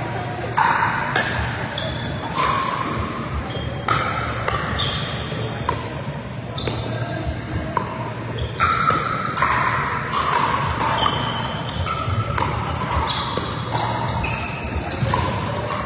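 Pickleball paddles hitting the hollow plastic ball back and forth in a rally, a sharp pock with a brief ringing ping roughly once or twice a second, echoing in a large sports hall.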